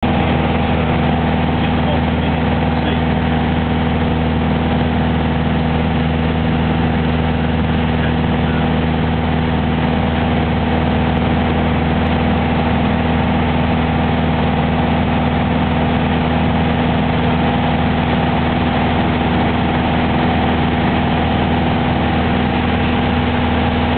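Light aircraft's piston engine and propeller droning at a steady pitch in flight, heard from on board.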